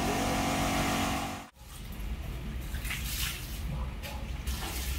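A small electric motor hums steadily and cuts off abruptly about one and a half seconds in, followed by a rushing noise of water being run into the concrete pot's inner mould, with a few light knocks.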